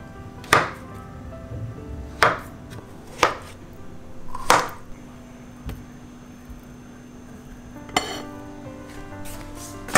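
Chef's knife chopping through a ripe avocado onto a bamboo cutting board: four sharp knocks, a second or so apart. About eight seconds in, a single knock as the knife slides the chunks onto a ceramic plate.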